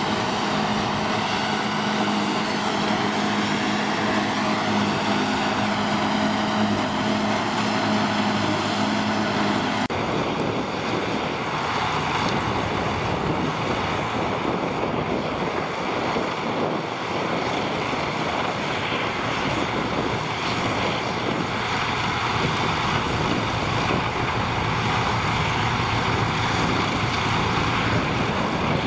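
Tractor engines running steadily at working revs, driving trailed forage harvesters that chop grass and blow it into silage trailers. The first outfit, a Ford tractor with a red harvester, runs with a thin high whine over the engine. After a cut about 10 s in, a second tractor-and-harvester outfit gives a broader, noisier drone.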